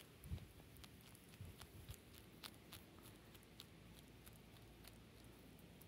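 Hedgehog chewing dog biscuits: faint, irregular crunching clicks, several a second, thinning out near the end.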